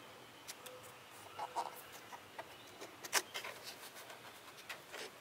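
Scattered light clicks and taps of a new pleated paper air filter element being handled and pressed into the plastic filter box of a lawn tractor engine, with one sharper click about three seconds in.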